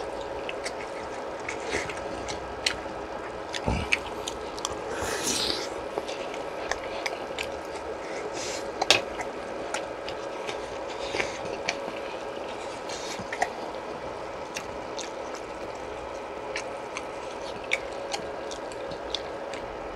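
Eating sounds from skewered fish cake soup: short chewing and wet noises and light clicks scattered over a steady background hum, with one sharper click about nine seconds in.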